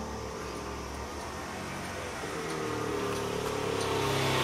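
Small motor scooter engine approaching on the road, its note rising slightly and growing louder toward the end.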